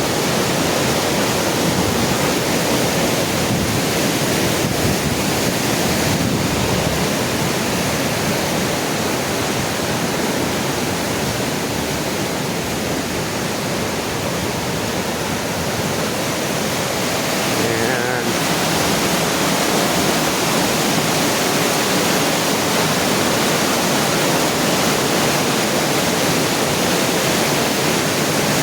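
Swollen river in flood, fast water rushing steadily and loudly.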